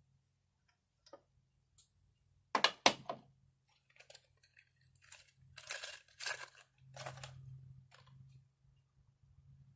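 Two sharp knocks in quick succession, then a few short rustling, scraping handling noises, like small hard parts and packaging being handled.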